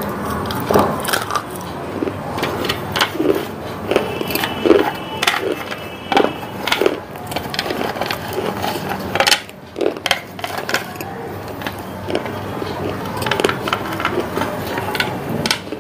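Close-up crunching of thin, crisp slices being bitten and chewed, a string of irregular sharp crunches.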